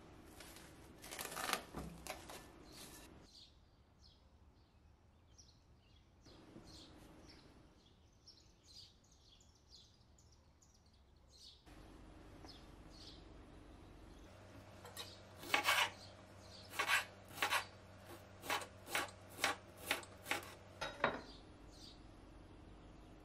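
Plastic cling film crinkling as it is stretched over a glass bowl, then faint bird chirps. Near the end comes a run of about a dozen crisp knife cuts through a red bell pepper onto a bamboo cutting board, the loudest sound.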